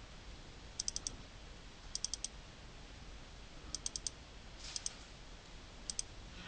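Light clicking at a computer, in five quick clusters of three or four clicks each, a second or two apart.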